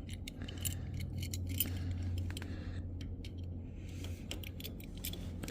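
Small metal tools clinking and rattling, Allen wrenches being handled and tried for size, with scattered sharp clicks over a steady low hum.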